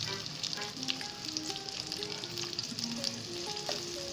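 Sliced onions sizzling and crackling as they fry in hot oil in a kadai, over soft background music.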